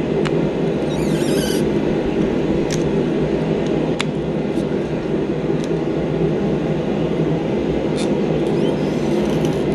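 A steady low rumbling noise fills the shop throughout. Over it come a few sharp metallic clicks, one a little before 3 seconds, one at about 4 seconds and one at about 8 seconds, as the hot steel snowflake is gripped and bent in the bench vise.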